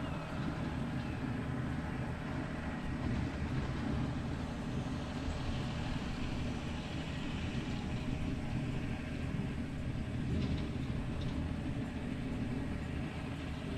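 A vehicle engine running steadily under way, with a low, even drone and no change in speed.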